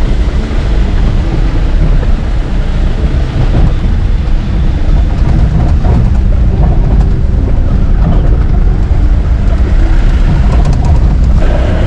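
Off-road jeep running over a rough dirt track, a steady low engine and road rumble.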